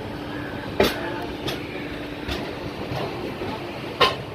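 Howrah Duronto Express coaches running over the rails with a steady rumble. The wheels clack sharply over rail joints about a second in and again near the end, with lighter clacks between.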